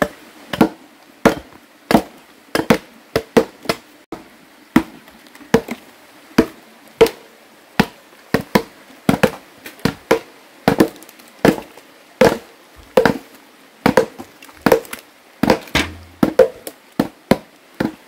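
Repeated chopping blows on a wooden tree stump, about two a second and irregular, each with a short ring, as its bark is knocked off.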